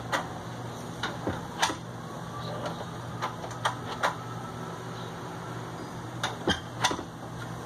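Lever handle and latch of a metal double door clicking and clacking as they are worked, in small clusters of sharp clicks about a second in, around four seconds in, and again near the end.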